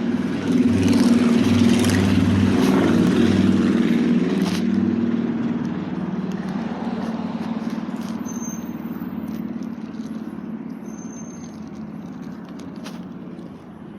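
A motor vehicle's engine running loudly close by, a steady low hum that slowly fades over the last several seconds as it moves off.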